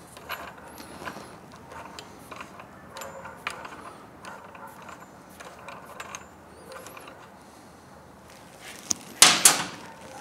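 Ratcheting wrench clicking in short runs as a 12 mm nut is backed off a muffler mounting bolt, its head held with an Allen key. A louder metallic clatter follows near the end.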